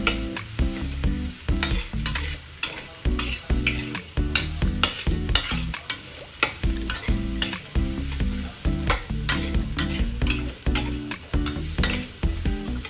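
A spatula scraping and stirring diced carrots, garlic and shallot frying in oil in a stainless steel wok, in quick irregular strokes over a light sizzle.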